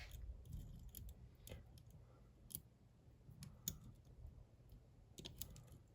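Faint metallic clicks of a diamond lock pick working the pins of a bike lock under tension from a tension tool, a few scattered ticks with a small cluster near the end, as the pins are probed and set.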